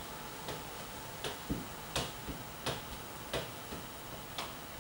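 Irregular sharp clicks or taps, roughly one or two a second, over a faint steady hiss.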